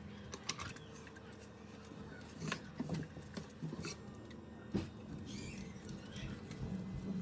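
Scattered light clicks and taps of kitchen handling, over a faint steady hum.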